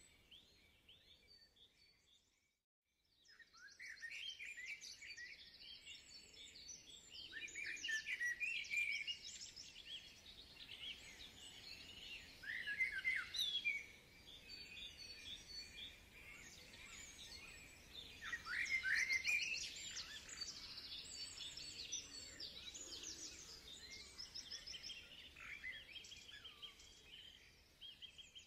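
Several songbirds singing at once: quick trills and many short chirps that sweep up and down in pitch. The sound cuts out almost completely for about a second, around two to three seconds in.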